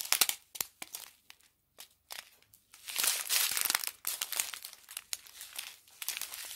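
Clear plastic zip bags of diamond painting drills crinkling and rustling as they are handled, with a short lull about one and a half seconds in.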